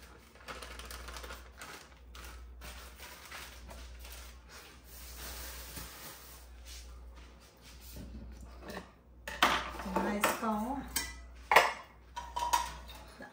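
Kitchen utensils clinking and scraping against bowls and pans in scattered light taps. The clatter grows louder in the last few seconds, mixed with a voice speaking.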